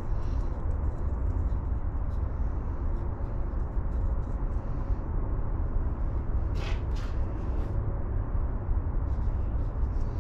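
Steady low rumble with a few light clicks and taps about two thirds of the way in, as small threaded air fittings are handled.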